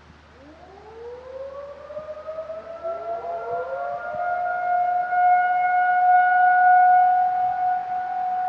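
Outdoor tornado warning siren winding up during its routine monthly test, climbing from a low growl to a steady high wail. A second wind-up starts about two and a half seconds in and settles onto the same tone, and the sound grows louder throughout.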